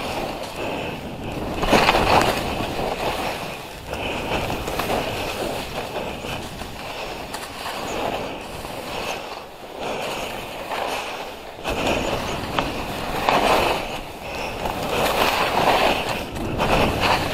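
Skis swishing and scraping through chopped-up snow in a run of linked turns, the sound swelling with each turn about every one to two seconds over a constant low rumble.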